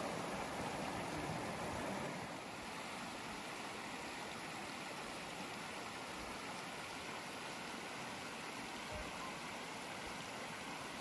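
Steady rush of a mountain stream flowing, dropping slightly in level about two seconds in.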